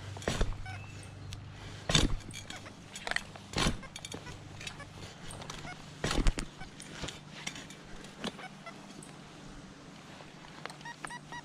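A digging tool chopping and scraping into soil in a series of separate strokes while a metal-detecting target is dug out. Near the end a metal detector pinpointer starts beeping in quick, even pulses, signalling the target is still in the hole.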